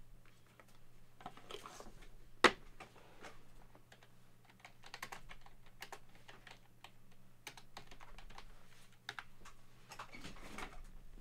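Computer keyboard typing: soft, irregular key clicks, with one sharper click about two and a half seconds in.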